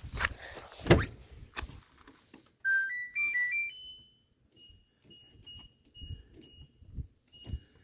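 Washing machine's electronic control panel: a short tune of five electronic tones, then a run of short, identical beeps about three a second as its buttons are pressed. Some knocks and clatter come first.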